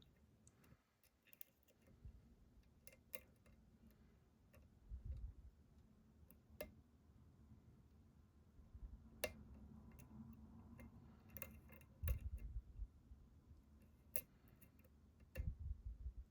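Faint, scattered clicks of a short hook pick working the pins inside a pin-tumbler challenge lock under tension, with a few low dull bumps from handling the lock.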